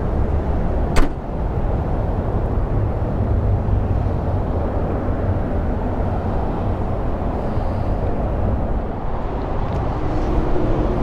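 Steady road-traffic rumble from a busy highway, with one sharp click about a second in.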